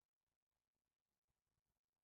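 Near silence: the sound track is essentially muted.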